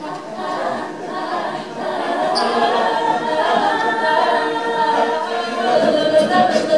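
Mixed-voice high school a cappella group singing together in close harmony, the many voices growing louder over the first couple of seconds and then holding full.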